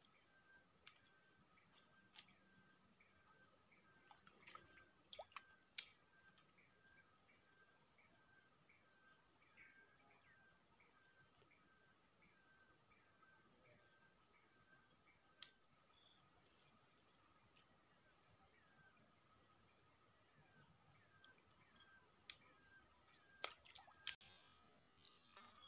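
Faint insect chorus: a steady high-pitched buzzing, with a short chirp repeating about twice a second. A few sharp clicks stand out about five seconds in and again near the end.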